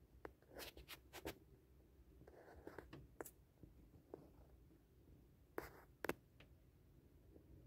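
Near silence with a few faint scratches and clicks from a handheld phone being handled: a cluster in the first second and a half, a few more around two to three seconds in, and two sharper clicks about six seconds in.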